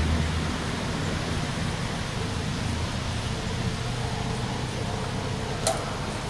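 Low rumble of a passing train fading out within the first second, then steady outdoor background noise. A single sharp click comes near the end.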